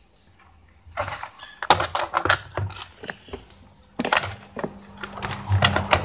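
Irregular clicks and light taps of multimeter probes and hands working on a CRT TV's circuit board. A low hum comes in near the end.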